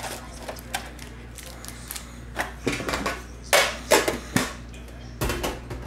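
Foil-wrapped hockey card packs and a card tin being handled: a series of short rustling, crinkling bursts, loudest about three and a half to four seconds in, with a last cluster near the end.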